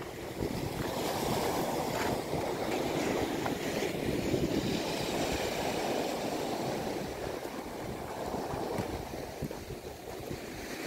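Sea waves breaking and washing over a rocky shore, the surf swelling and easing, with wind rumbling on the microphone.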